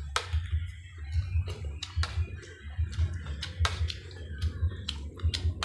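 Close-miked chewing and lip-smacking: an irregular run of quick wet mouth clicks over a low pulsing rumble.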